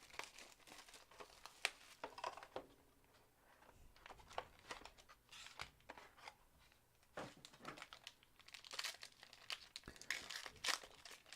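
Trading card packaging being handled and opened by hand: irregular crinkling, rustling and tearing of wrappers and card packs, with small crackles, busiest near the end.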